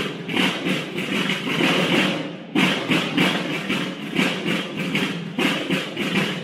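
Snare drums of a banda de guerra (Mexican military-style drum and bugle corps) beating a steady marching cadence, with a brief break about two and a half seconds in.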